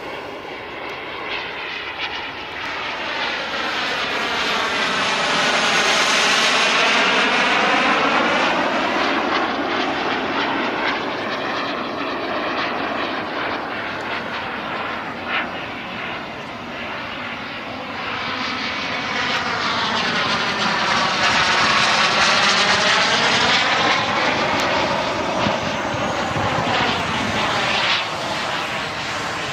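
Turbine-powered giant-scale RC English Electric Lightning model jet flying by twice, its rushing engine noise swelling and fading with each pass. The first pass peaks about a quarter of the way in and the second about two-thirds through, each with a sweeping, phasing shimmer as the jet passes.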